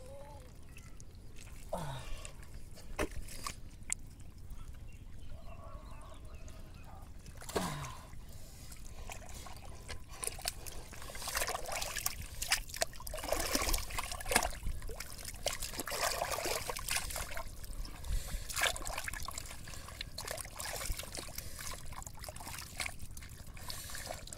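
Hands squelching and sloshing through wet mud, muddy water and soaked rice straw while digging for fish, with irregular wet splashes that get busier about halfway through.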